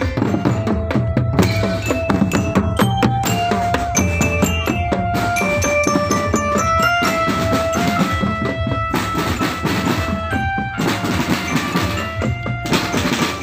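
Marching drum band playing: snare and bass drums beat a steady rhythm under a tune of held, stepping notes.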